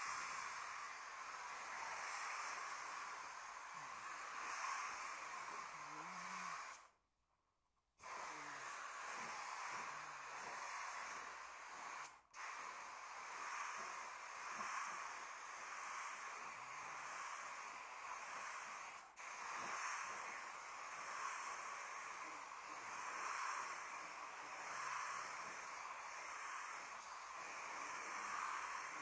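Compressed-air suction-feed spray gun hissing steadily as it sprays paint. It stops for about a second once and cuts out very briefly twice more.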